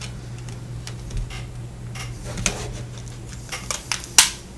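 Plastic battery door of a Samsung Focus phone being fitted to the back housing: a scatter of small plastic clicks and taps, the sharpest snap about four seconds in, over a steady low hum.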